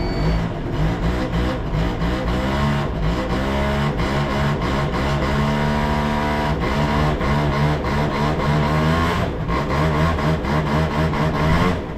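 Yamaha Zuma's 50cc two-stroke scooter engine, freshly started, being revved up and down several times, its buzzing pitch rising and falling. The carburetor is dirty and gunked up, and the engine is still warming up.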